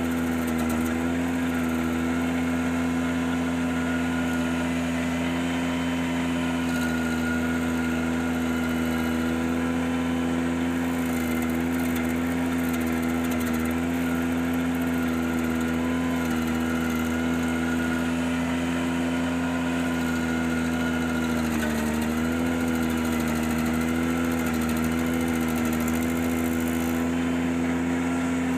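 Ventrac 4520Z compact tractor running steadily with its stump grinder attachment, a constant engine drone whose pitch dips briefly about 22 seconds in and then wavers.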